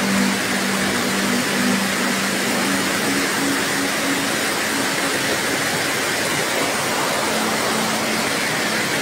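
Muddy flash-flood water rushing in a steady, even noise, with a low steady hum through the first few seconds that returns near the end.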